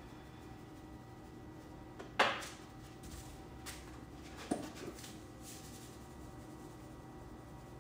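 A few short knocks of kitchen items being handled and set down, likely seasoning containers while chicken is seasoned: a louder knock about two seconds in, another about four and a half seconds in, and a couple of lighter taps.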